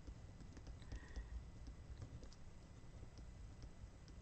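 A pen writing on a paper planner sticker: faint scratches and small ticks of the pen tip on the paper.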